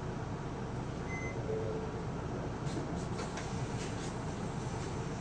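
Inside the cabin of an Isuzu Erga (PKG-LV234L2) city bus under way: a steady diesel engine and road rumble. A brief high beep comes about a second in, and a few light rattles or clicks follow around three seconds in.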